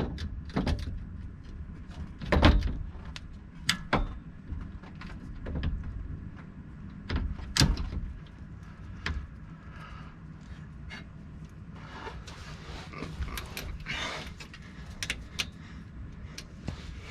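Irregular metal knocks and clinks as a new front driveshaft-to-axle U-joint and its bearing caps are worked back up into the Jeep Wrangler TJ's front axle yoke, with louder clunks about 2.5 and 7.5 seconds in and scraping near the end.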